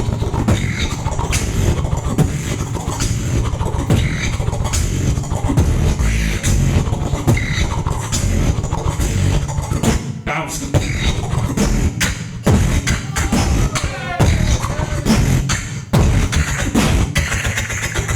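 Solo beatboxing into an amplified microphone: a dense rhythm of heavy bass kicks, snares and sharp clicks, with a brief drop about ten seconds in and a wavering pitched vocal line around fourteen seconds.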